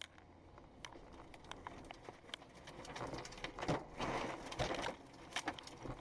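Tornado winds driving rain and debris against a car, a dense patter of sharp hits over a rushing noise that builds and grows louder from about three seconds in.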